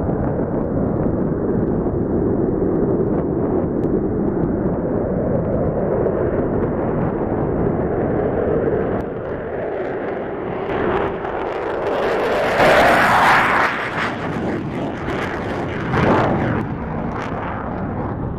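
An F-15 Eagle fighter jet taking off on afterburner. A steady deep rumble swells to its loudest, harshest roar a little past two-thirds of the way in, with a second shorter surge a few seconds later.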